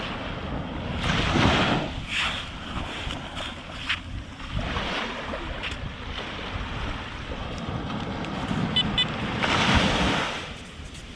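Surf and wind buffeting the microphone, with surges of rushing noise, and a short metal detector beep near the end.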